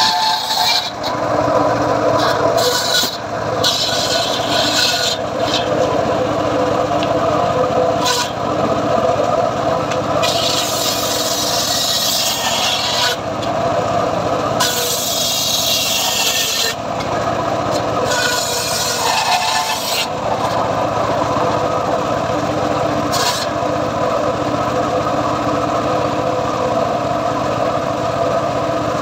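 Homemade circular-saw bench running steadily while its spinning blade rips an old teak log into planks. The high cutting hiss comes and goes in stretches of a second or two as the wood is pushed through the blade, over the machine's constant running tone.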